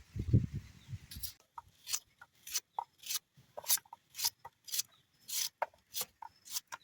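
Repeated short scraping strokes, roughly one to two a second, with a low rumbling in the first second.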